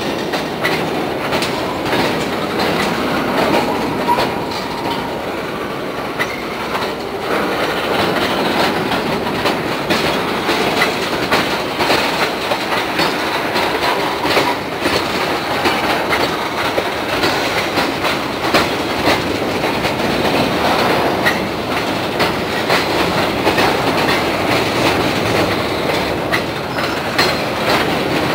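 Freight cars rolling past at close range: a steady rumble and clatter of steel wheels on rail, with repeated clicking as the wheels cross rail joints.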